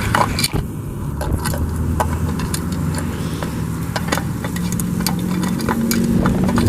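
A steady engine-like hum whose pitch creeps slowly upward, with scattered sharp clicks through it.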